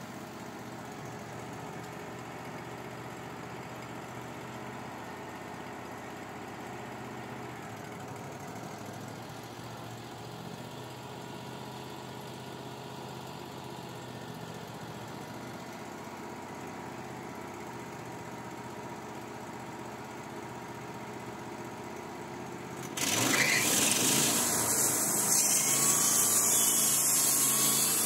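Wood-Mizer LT35 HD portable sawmill running steadily, then most of the way through the band blade enters the log and it gets suddenly louder as it starts sawing.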